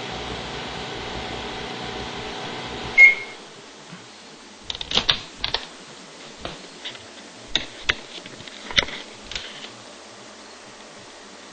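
Microwave oven running with a steady hum, then one short high beep about three seconds in as it stops at the end of its timed run. After that come a series of sharp clicks and knocks.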